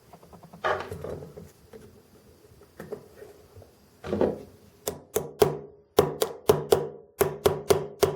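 A small tool clicking and tapping against the metal of a die-cast scale model while working at a drilled-out rivet that won't come free. There are a few scattered clicks at first, then a quick run of sharp, ringing taps, several a second, from about four seconds in.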